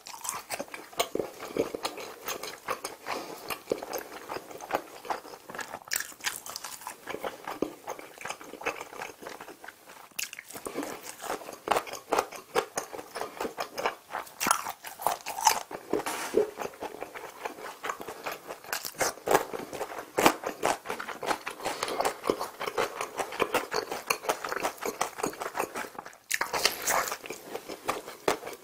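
Close-miked eating of gimbap (seaweed rice rolls): wet chewing and lip smacks with crisp bites mixed in.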